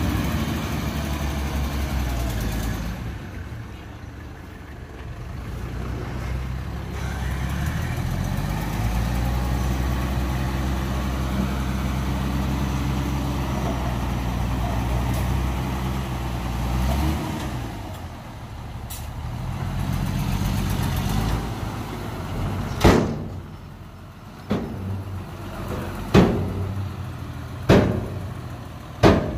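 Diesel dump truck engine running under load, its revs rising about eight seconds in and held while the hydraulic hoist tips the loaded body, then dropping back. In the last several seconds, a series of sharp metal bangs as the tipped body unloads soil.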